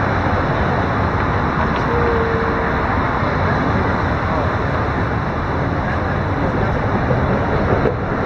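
Steady road traffic noise from cars and a motorcycle passing along a city street.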